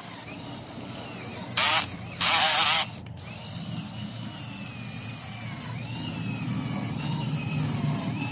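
Small cordless battery drill boring slowly into hard jackfruit root wood, its motor whine wavering in pitch under load. Two short, much louder bursts come about two seconds in.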